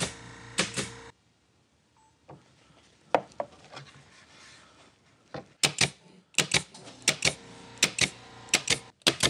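Pneumatic pin nailer firing pins through plywood, sharp clicks in quick succession. There are a couple of shots in the first second and a steady run of shots from about halfway through, with a quieter pause of handling in between.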